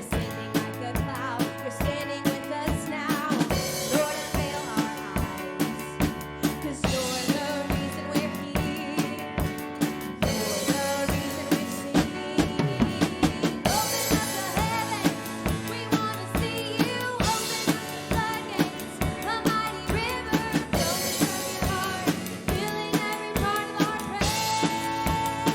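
Live worship band playing a passage without vocals: a drum kit keeps a steady beat with kick and snare under sustained chords, bass, and a wavering melody line.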